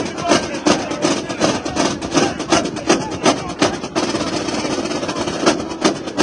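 Marching drumline snare drums and cymbals playing a fast cadence, with rapid, sharp hits and a steady fast roll for about a second and a half about four seconds in.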